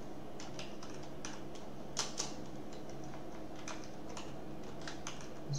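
Typing on a computer keyboard: irregular key clicks, one of them louder about two seconds in, over a steady low hum.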